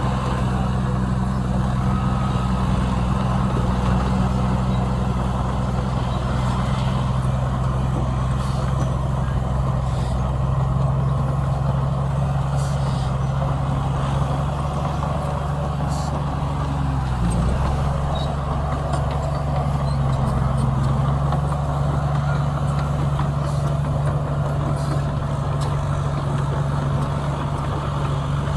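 Heavy diesel engine of earthmoving equipment running steadily, with a brief dip in its pitch a little past the middle.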